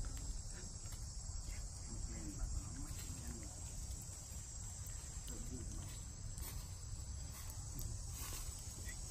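Steady high-pitched drone of an insect chorus, over a low rumble.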